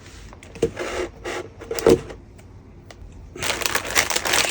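A cardboard plastic-model kit box being opened: a few knocks and cardboard scrapes in the first two seconds. From about three and a half seconds in, the plastic bags of sprue runners inside crinkle as they are handled.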